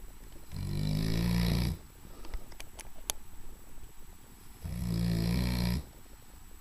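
Large English Mastiff snoring: two loud, buzzing snores, each a little over a second long, about four seconds apart.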